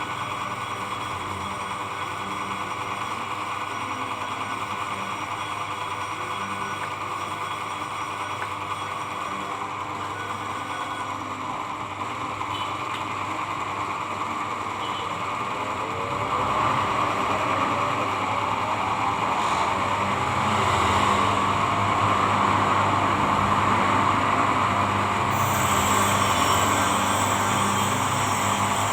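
Steady motor hum with a rough abrasive rubbing noise as a machine blade is sharpened with oil and abrasive. The rubbing gets louder about 16 seconds in.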